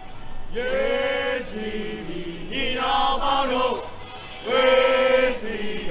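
Crowd of protesters chanting in unison, in several drawn-out phrases with long held syllables; the last phrase is the loudest.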